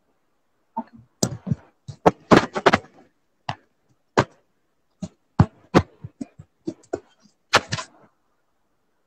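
An irregular run of about a dozen sharp taps and knocks, some in quick clusters, lasting about seven seconds and stopping abruptly.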